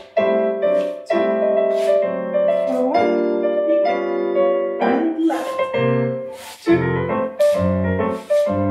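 Piano music for a ballet class exercise: chords struck in a steady beat, about one a second.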